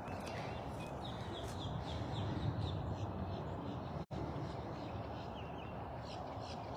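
A bird calling over steady outdoor background noise: a rapid run of short, repeated, downward-sliding chirps. The sound cuts out for an instant about four seconds in.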